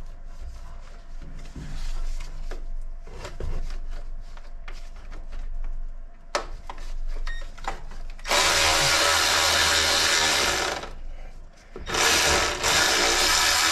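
Metal clicks and knocks of a socket wrench working on engine bolts, then a power tool running loudly in two bursts of two to three seconds each, about a second apart.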